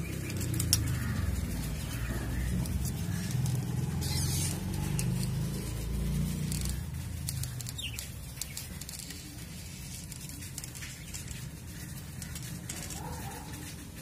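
A wire hook clicks sharply against the metal hasp of a wooden cage door about a second in, over low handling noise that lasts the first half. After that the sound is quieter, with a few faint budgerigar chirps near the end.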